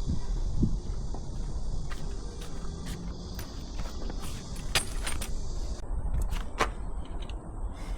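Scattered light clicks and small knocks, a few in quick succession around the middle, over a steady low rumble.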